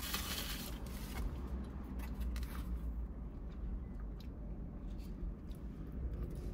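Paper napkin rustling briefly as fingers are wiped, then soft chewing and small mouth clicks while eating pizza, over a low steady hum.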